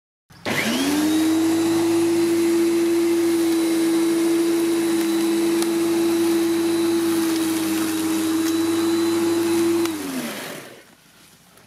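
Parkside PRM 1300 A1 1300 W electric lawnmower's motor switched on, its whine rising quickly to a steady pitch. It runs evenly for about nine seconds, then is switched off and winds down, the pitch falling as it fades.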